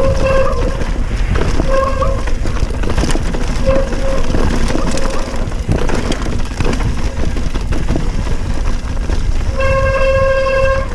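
Steel Commencal Meta hardtail mountain bike descending a dry, rocky dirt trail at speed: a continuous rumble of tyres, wind and rattling bike with frequent knocks. A steady buzzing tone cuts in and out several times, longest near the end.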